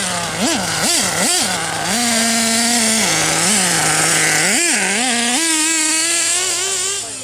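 An engine revved in three quick blips, then held at a steady higher speed, then blipped twice more and held again, its pitch creeping up before easing off near the end.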